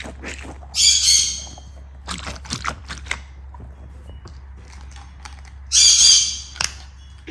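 Pet bird squawking twice, about a second in and again near six seconds in, with a few faint clicks and knocks between the calls.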